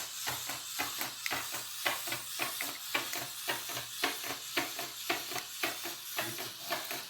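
Hexbug remote-control robot spider walking, its small motor and plastic legs making a rapid, even clicking patter of several clicks a second.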